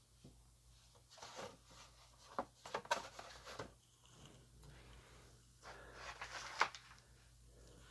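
Faint handling noises: scattered light knocks, rubs and rustles as a box and packaging are moved around.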